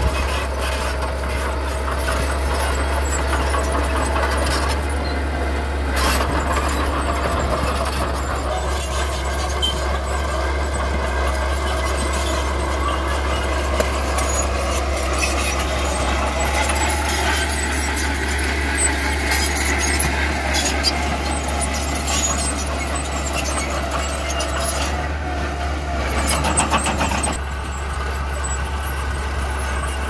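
Mini bulldozer's engine running steadily with a deep drone. A wavering high-pitched whine and scattered clanks sound over it, with a brief burst of clanking a little before the end.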